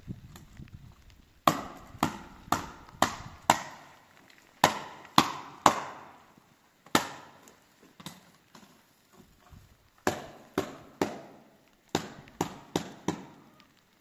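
A series of sharp, hard strikes, about two a second in runs with short pauses between, each ringing briefly.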